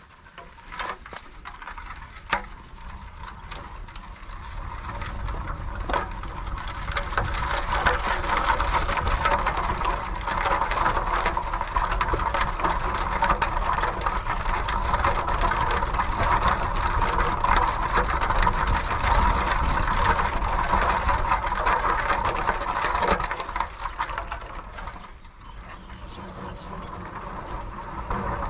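Fixed-gear bicycle being ridden: a steady rush of tyre and road noise with rattles. It starts with a few sharp clicks, builds over the first several seconds, holds steady, and eases briefly near the end.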